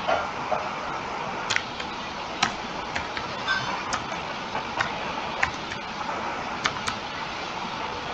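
Computer keyboard keys pressed one at a time, about a dozen separate clicks at uneven intervals over a steady background hiss.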